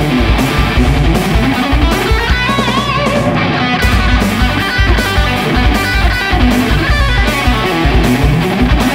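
High-gain electric guitar, a Fender Stratocaster played through the Mooer Micro Preamp 015 Brown Sound and its cabinet emulation at full gain, over drums and bass. It moves from rhythm playing into a lead part with bent notes partway through.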